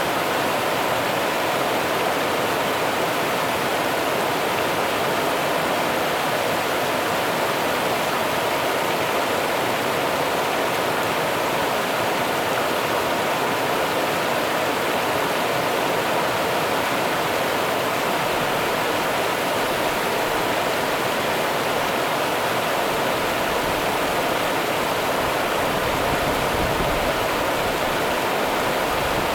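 Rio Grande river water running steadily, an even rushing noise.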